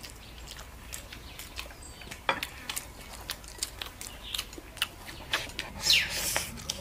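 Eating at a table: scattered light clicks and taps of chopsticks against bowls, with a louder falling swish near the end.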